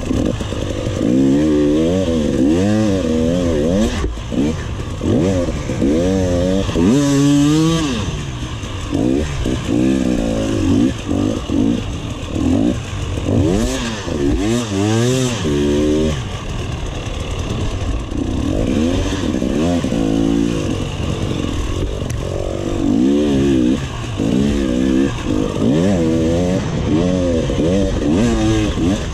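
Enduro motorcycle engine under hard riding, revving up and down over and over as the throttle is opened and shut through sandy ruts. It climbs to its highest revs about seven seconds in and again around fifteen seconds.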